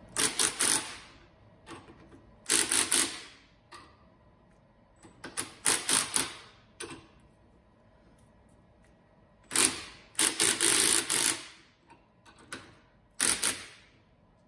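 Cordless impact wrench hammering in five short bursts, each a rapid rattle lasting about a second, as it runs the nuts down on a puller's studs. Each burst jacks the drive pulley a little further up off the milling-machine spindle shaft.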